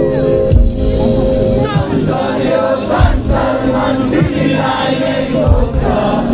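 Live band music played loud over a concert PA, heard from within the crowd: held chords at first, then singing from about two seconds in, over a drum beat landing a little more than once a second.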